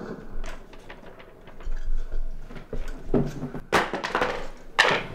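A large sheet of paper being handled: scattered light clicks and knocks, then two louder rustles, the second near the end.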